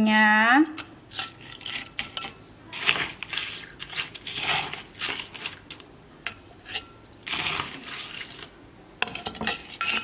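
Crushed ice being spooned into tall drinking glasses: repeated irregular scrapes, clinks and crunches of a spoon against the bowl and glass, with the glass ringing briefly a few times.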